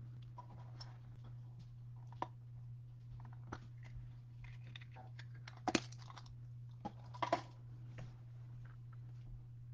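Irregular typing and clicking on a computer keyboard, with a few louder clicks past the middle, over a steady low hum.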